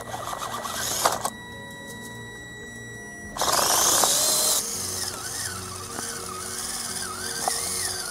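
Background music with the small brushed electric motor and gear drive of a scratch-built RC 8x8 truck whining under it, its pitch wavering up and down with the throttle. A louder burst of drivetrain noise comes about three and a half seconds in.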